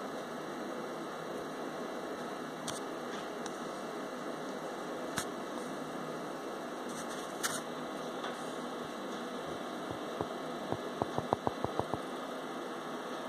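Steady background hum and hiss, with a few scattered faint clicks and, near the end, a quick run of about eight clicks.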